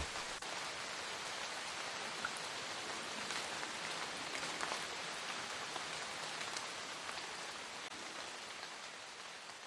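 Steady patter of rain, fading out near the end.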